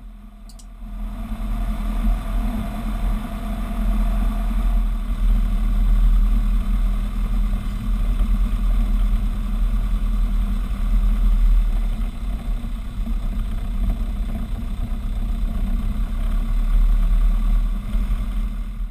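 Robin DR400's piston engine and propeller running steadily at taxi power, heard from inside the cockpit. It grows louder about a second in and then holds an even drone.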